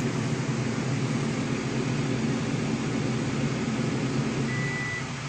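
Beautiful air fryer's fan running with a steady hum, then one short high beep near the end as the cooking timer runs out.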